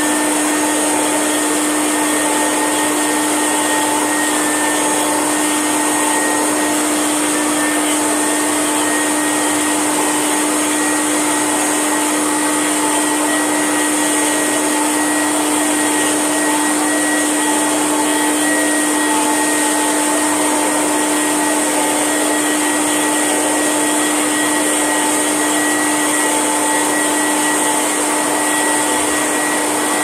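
Kirby G7 Ultimate vacuum cleaner running steadily on its hose with a floorhead attachment, a constant motor hum and whine over the rush of air, while the head is worked back and forth over a small carpet mat.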